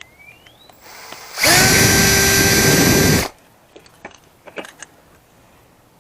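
A power drill spins at a steady speed for about two seconds, starting about a second and a half in and stopping suddenly. It is followed by a few light clicks of parts being handled.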